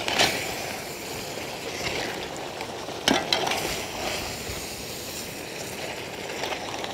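Whole crabs in masala sizzling in a large iron kadai over a wood fire, stirred with a metal spatula that knocks and scrapes against the pan a few times over a steady sizzle.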